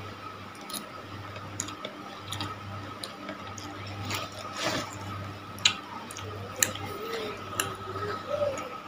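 Chewing a mouthful of cilor (chewy tapioca-and-egg balls) and macaroni: wet mouth clicks and smacks roughly once a second, over a steady low hum.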